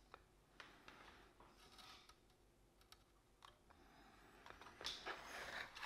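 Faint scattered clicks and light scrapes of hands and a soldering iron working on an instrument cluster's circuit board, with a louder rustle near the end.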